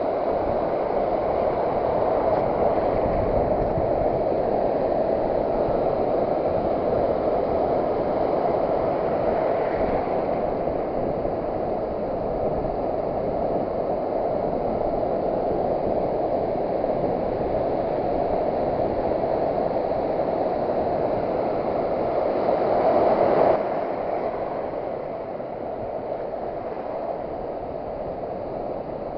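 Sea surf washing onto the beach, a steady rush of water that drops in level about 23 seconds in.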